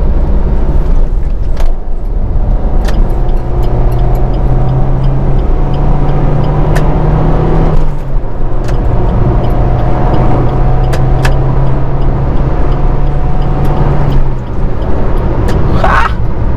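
Suzuki Ciaz's engine pulling hard under acceleration, heard from inside the cabin over steady tyre and road noise. The engine note climbs slowly, drops back about eight seconds in, climbs again and falls away shortly before the end.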